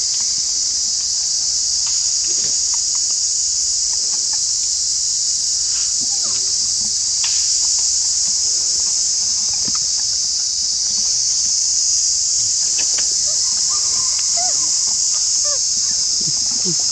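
A chorus of insects droning steadily and loudly at a high pitch, with faint short chirps and squeaks scattered through it.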